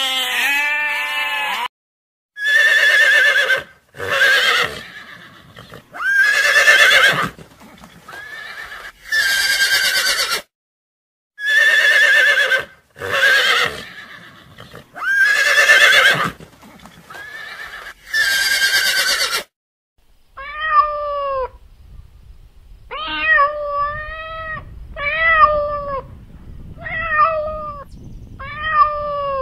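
A goat bleats once. Then horses whinny over and over, several loud wavering calls. From about two-thirds of the way through, a cat meows repeatedly, roughly once a second.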